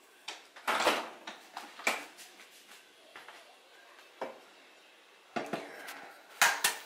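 A refrigerator door pushed shut with a thump about a second in, followed by scattered light knocks on a kitchen counter and two sharp taps near the end.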